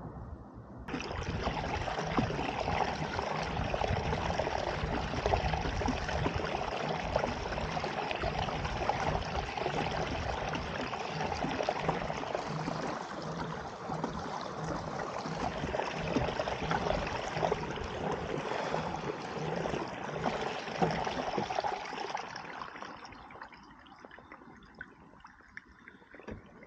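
Water rushing along the hull of a pedal-driven fishing kayak under way, with a faint regular pulse underneath. It starts about a second in and dies away near the end.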